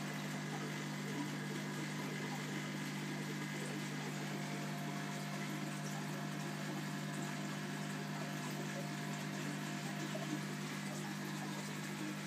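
Aquarium filter running: a steady rush of moving water with a constant low hum from its pump.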